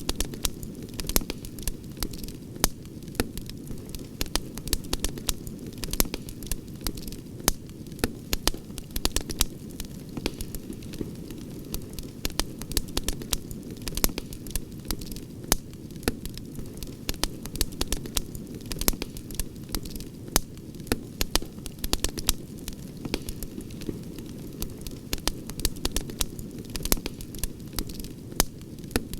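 Campfire crackling: frequent irregular sharp pops and snaps over a steady low rumble of burning wood.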